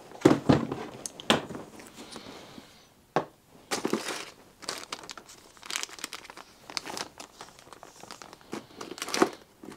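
Rummaging through a box of radio parts: small plastic bags crinkling and rustling in irregular bursts, with a couple of sharp knocks in the first second and a half as the box is handled.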